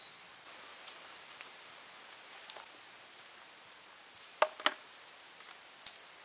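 Sharp knocks and clinks of a cleaver, a basket of greens and a metal plate being set down on a wooden table. There are a couple of light ticks about a second in, two knocks close together about four and a half seconds in, and a bright clink near the end.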